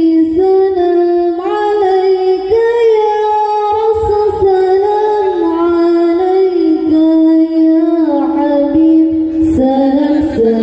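Women singing an Islamic devotional song through microphones, with long held notes that step and slide between pitches.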